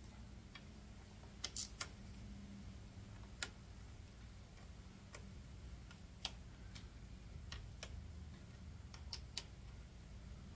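Hand socket ratchet clicking in short, irregular runs of single ticks while backing out the 10 mm pressure plate bolts on a Harley clutch, over a faint low steady hum.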